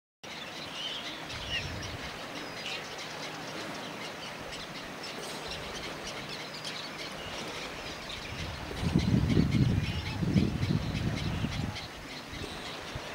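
Yellow-legged gull chicks peeping with thin, high calls, heard mostly in the first few seconds. A louder low rumble comes in from about nine to eleven seconds in.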